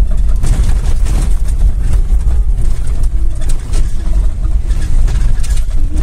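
Steady engine and road rumble of a moving car, heard from inside the cabin, with a few light knocks.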